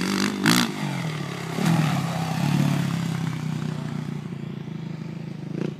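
Suzuki RM-Z motocross bike's single-cylinder four-stroke engine revving as the dirt bike rides the track. The revs rise and fall, with sharp surges about half a second in and again near two seconds, then the engine holds steadier as it fades away.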